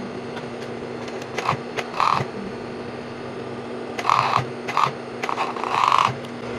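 Cut pieces of fabric rustling as they are handled and folded, in several short bursts, over a steady background hum.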